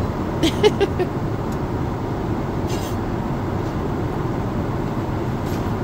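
Steady cabin roar of a Boeing 777-300ER in flight, a mix of engine and airflow noise. A few light clicks come about half a second in, and a short hiss follows about three seconds in.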